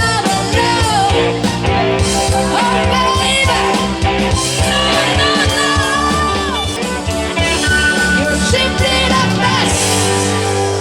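Live band music with singing, guitar and drums at a steady beat; the drums drop out near the end, leaving held chords.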